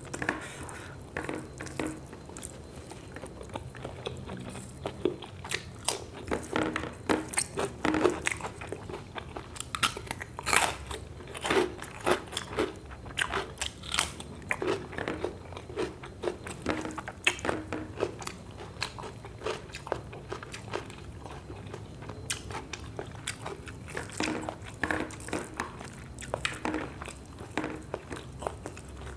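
A person chewing and biting crispy fried food eaten by hand, close to the microphone, with many sharp crunches coming thick and fast, busiest through the middle.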